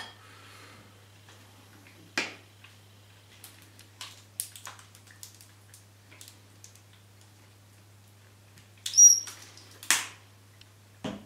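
Scattered light clicks and taps of tableware and a condiment bottle being handled at a low dining table, with a louder clatter and a brief high-pitched squeak about nine seconds in, followed by a sharp knock about a second later.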